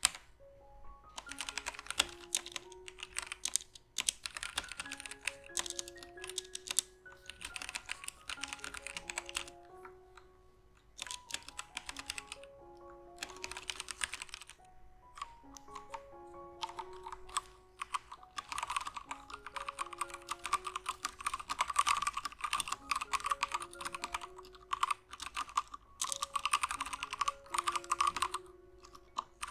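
Typing on a Womier K66 mechanical keyboard with Gateron Brown tactile switches: fast runs of key clicks in bursts of a few seconds with short pauses between. Soft background music with held notes plays underneath.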